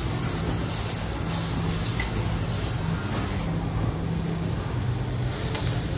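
Food sizzling on a teppanyaki hotplate, a steady hiss with a low hum underneath.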